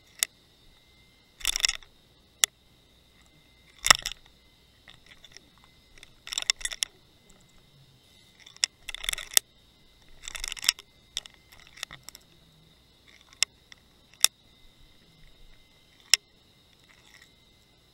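Underwater camera housing on a bottom fishing rig: sharp clicks and short scratchy scraping bursts as the rig knocks and shifts, over a faint steady high whine.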